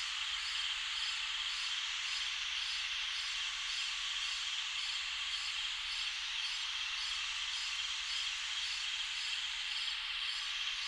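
Summer night ambience: a dense, steady chorus of night insects such as crickets, a continuous high hiss with a faint regular pulsing through it.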